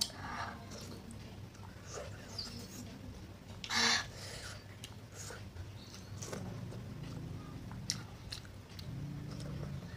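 Close-up chewing and mouth sounds of a person eating spicy seblak, with scattered light clicks as she eats. A short, louder rush of noise comes about four seconds in.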